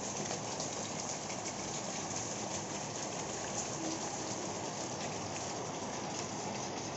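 Steady rain falling on a wet concrete floor and shallow puddles: an even hiss of many small drops hitting the water.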